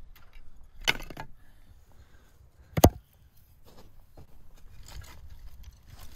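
Axe striking firewood on a wooden chopping block. There is a heavy hit about a second in, then a sharper, louder strike near three seconds, followed by a few lighter knocks.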